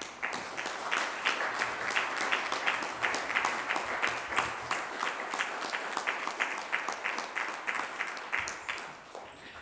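A roomful of people applauding, many hands clapping together; it starts at once and dies away near the end.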